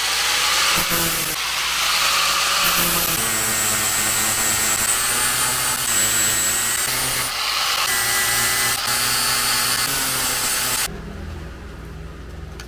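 Handheld power tool running under load, grinding or boring into metal, its pitch wavering as the pressure changes, then switched off suddenly about eleven seconds in.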